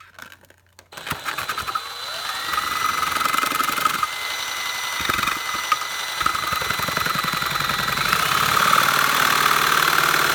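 An electric drill spinning up about a second in and running a LEGO chainsaw's crankshaft and blade through styrofoam: a motor whine that rises in pitch, then holds steady over a fast rattle, then speeds up again near the end.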